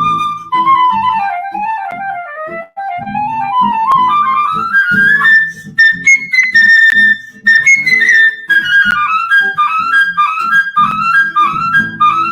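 Instrumental music: a high, wind-like melody line that falls, then climbs and moves in quick notes, over a rhythmic low accompaniment.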